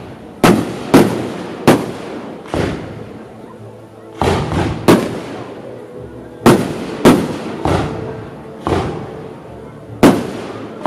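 Aerial firework shells bursting overhead: about a dozen sharp bangs at irregular intervals, each trailing off in an echo, with a few coming in quick clusters.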